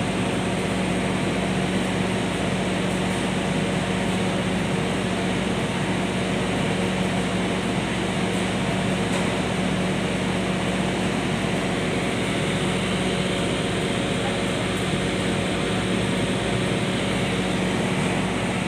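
Steady machine hum: a constant low drone with a few fainter steady tones over a broad hiss, not changing in pitch or level.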